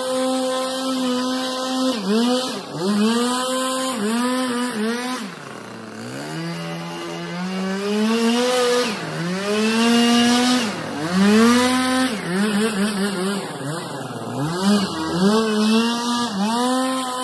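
Gas leaf blower's small engine run at high throttle, the throttle let off and opened again over and over so the pitch keeps dipping and climbing back. About six seconds in it drops to a low idle for a second or so before revving back up.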